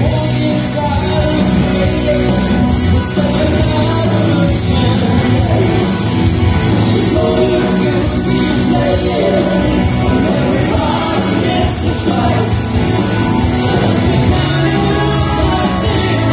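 Live rock band playing: a male lead vocalist singing over electric guitars and drums.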